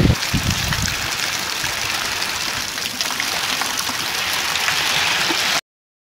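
Heavy rain pouring steadily in strong wind, with gusts briefly buffeting the microphone at the start. The sound cuts off suddenly near the end.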